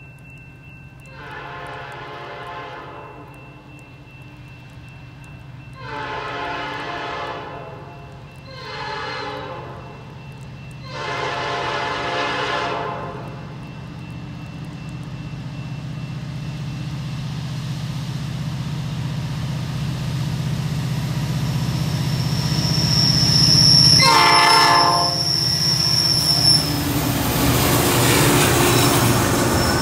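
Diesel freight locomotive horn sounding in the distance, long, long, short, long: the grade-crossing signal. Then the locomotives' diesel engines grow steadily louder as the train comes close, with one more short horn blast and a high steady squeal of wheels on the curve. Near the end comes the rolling noise of the freight cars passing.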